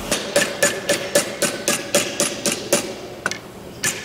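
Mallet blows on an aluminium strip clamped in a vise against a wooden former, used to work the strip to shape: about eleven even strikes at about four a second, each with a short metallic ring, then after a pause a few more spaced blows.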